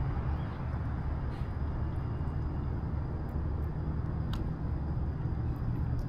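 Steady low rumble and hiss of a fishing kayak underway, with a few faint clicks.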